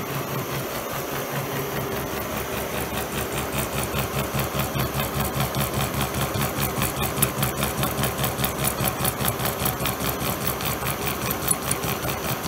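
Schaublin SV52 horizontal milling machine running a gear cutter through a gear blank, a steady hum with an even, rhythmic pulsing from the cut. The pulsing is chatter, which the owner puts down to cutter and arbor run-out and head bolts left loose.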